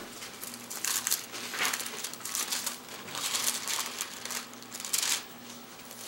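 Pages of a Bible being leafed through by hand, a run of paper rustles and swishes as the passage is searched for.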